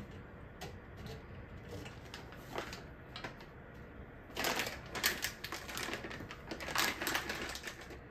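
Stiff plastic food pouch crinkling and crackling in dense bursts as it is handled to take out walnuts, after a few light clicks and taps.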